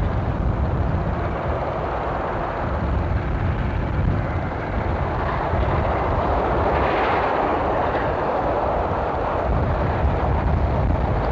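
15-inch gauge Romney, Hythe & Dymchurch steam locomotive and its train running toward the camera: a steady rumble and hiss, which swells brighter about seven seconds in.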